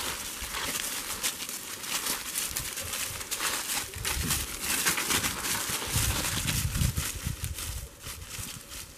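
Dry fallen leaves crackling and rustling under two White Shepherd puppies' paws as they scuffle and play tug-of-war with a stick.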